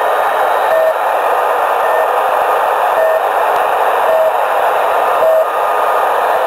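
Shortwave radio receiver in AM mode, tuned to 3756 kHz, playing The Pip, the Russian military shortwave station: short identical beeps about once a second over a loud, steady static hiss. The beeps are the station's channel marker, sent continuously to hold the frequency between voice messages.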